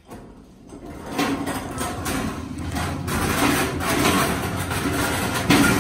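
Empty metal hand truck (two-wheel dolly) being wheeled into a trailer, its frame and wheels rattling and clattering over the floor. The rattle builds about a second in and stays busy, with a sharper knock near the end.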